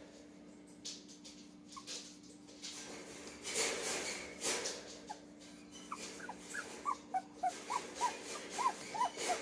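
Two-week-old puppy squeaking: a string of short, high-pitched squeaks, two or three a second, starting about halfway through. Before it there is some brief rustling.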